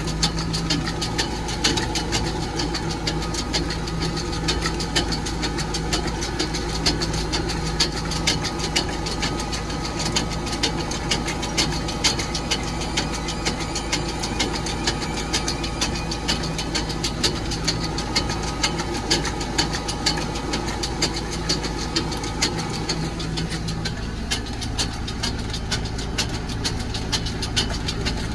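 Tractor engine running steadily, heard from inside the cab, with a fast clicking rattle throughout. The engine note drops to a lower pitch near the end.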